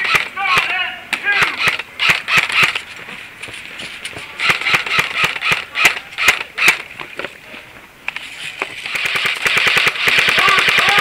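Airsoft guns firing around the player: scattered single shots and short bursts, then a long rapid full-auto burst near the end. Brief shouted voices come at the start.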